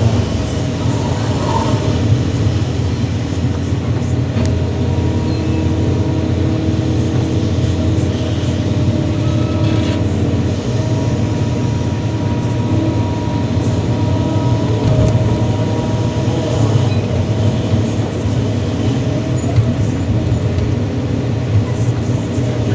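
Kobelco SK330-10 excavator's diesel engine running steadily under working load, a deep continuous rumble with a thin steady whine above it at times, as the machine digs and loads.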